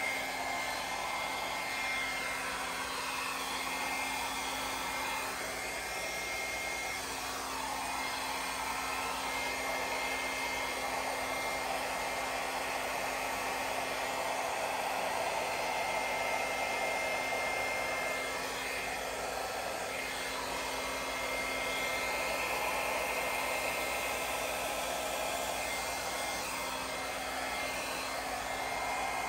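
Handheld hair dryer running steadily, blowing air across wet poured acrylic paint to push it across the canvas in a Dutch pour. Its airy hiss, with a steady motor hum underneath, swells and eases a little as the dryer is moved.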